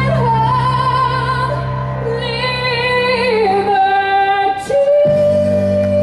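Woman singing into a microphone over amplified accompaniment, holding long notes with vibrato. About five seconds in she moves to a new long, steady held note.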